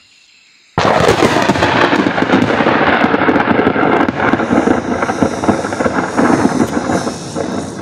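Loud, close-miked crunching and chewing of food: roasted rat meat and chayote greens. It starts suddenly about a second in as a dense, continuous crackle.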